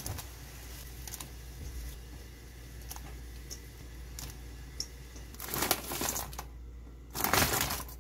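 Cooking at a pot of simmering tteokbokki sauce: a steady low simmer with scattered light taps, then two louder rustling sounds about a second long each near the end as ingredients are added to the pot.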